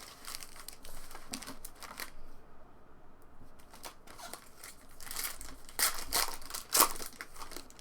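Foil trading-card pack wrappers crinkling and tearing as packs are ripped open, in ragged crackles. There is a short lull a little after two seconds in, and the sharpest crackles come late.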